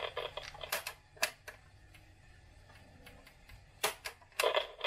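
Control keys of an Alaron HR-407 transistor reel-to-reel tape recorder clicking as they are pressed, a few sharp clicks. A pulsing buzz from the recorder's amplifier sounds at the start and again near the end; the tape motors do not run.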